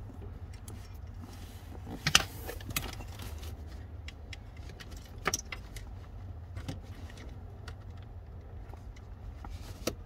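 Small plastic-and-metal clicks and rattles of a fuse tap and its wires being handled and pushed into a car's under-dash fuse box, with a sharp click about two seconds in, over a steady low hum.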